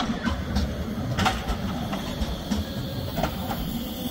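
Tram rolling past at close range: a steady low rumble with several sharp clicks from the wheels on the rails.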